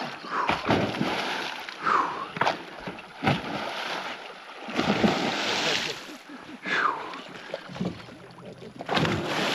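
Water splashing and sloshing in several separate bursts, the longest and loudest about five seconds in, as a large arapaima moves and thrashes in the water beside the boat.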